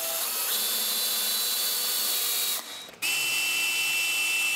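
Cordless drill/driver driving trim head screws into a wooden plinth block: two runs of the motor's steady high whine, the first stopping about two and a half seconds in and the second starting a moment later.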